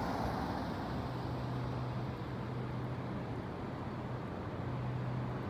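Heavy trailer truck approaching slowly in the distance: a steady low engine hum over even road and traffic noise.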